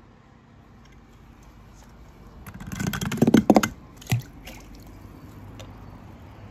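A small die-cast toy car clattering down a ramp of wooden craft sticks, a fast run of clicks lasting about a second, then one short plop as it drops into the pool water.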